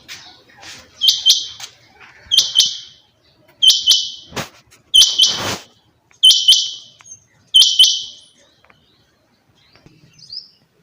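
Quail calling: a sharp, high two-note call repeated six times, about one every 1.3 seconds, then stopping, with one faint short call near the end.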